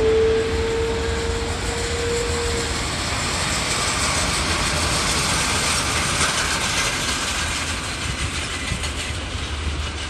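Jet engines of an Airbus A330-243, its twin Rolls-Royce Trent 700 turbofans, running at taxi power: a steady jet hiss with a steady whine that fades out about three seconds in.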